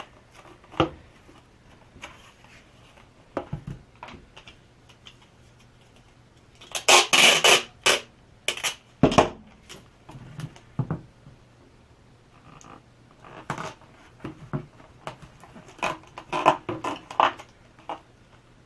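Clear packing tape pulled off a dispenser roll, with one loud noisy burst about seven seconds in, and then torn off. Short knocks, crinkles and rustles come from foam board being handled and the tape being pressed down.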